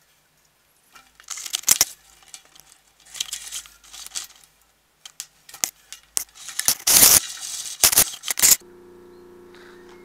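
Loud irregular rustling, scraping and clattering of cable and gear being handled. About eight and a half seconds in, a sump pump starts up and runs with a steady low hum.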